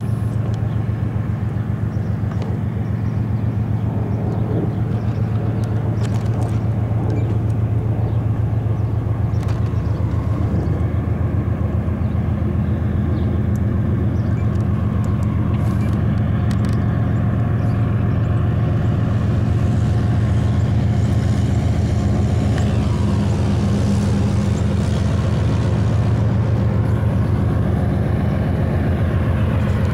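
Diesel-electric freight locomotives running, a loud steady low engine drone with a fast even pulse.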